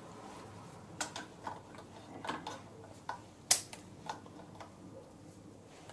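Irregular small metallic clicks and taps of pliers working on a dial indicator's magnetic-base stand, with one sharp, louder click about three and a half seconds in.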